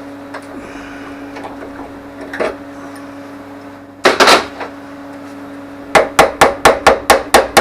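Hammer striking metal: a couple of blows about four seconds in, then a quick run of about ten ringing blows, roughly five a second, near the end, over a steady hum.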